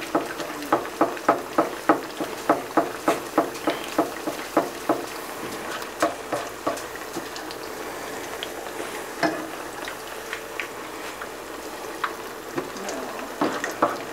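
Peanut oil sizzling and bubbling steadily around two masa quesadillas deep-frying in a pan, with sharp pops and crackles that come rapidly for the first five seconds, thin out, then pick up again near the end.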